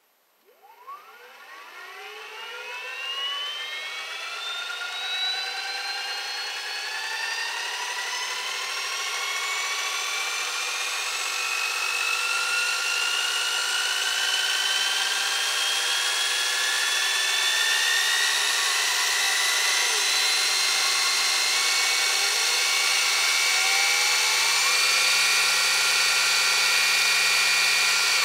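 CYC X1 Pro gen 1 mid-drive motor and its reduction gearbox spinning up with no load: a whine that climbs quickly over the first few seconds, then keeps rising slowly and getting louder as field weakening pushes the speed higher after a hall-sensored start and a switch to sensorless running.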